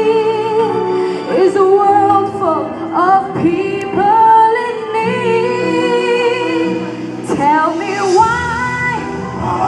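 A girl singing solo into a microphone over instrumental backing music.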